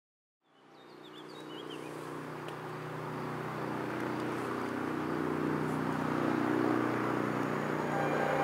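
BR232 'Ludmilla' diesel locomotive approaching with a freight train, its engine's low drone growing steadily louder. A few bird chirps about a second in.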